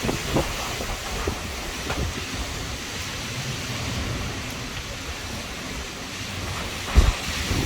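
Steady heavy rain of a severe thunderstorm, with wind gusting against the microphone; a strong low gust hits about seven seconds in.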